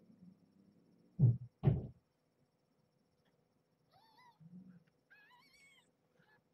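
Two dull thumps a little over a second in, then newborn kittens mewing: a short, wavering squeak about four seconds in and a longer, wavering mew just after it. A faint steady hum runs underneath.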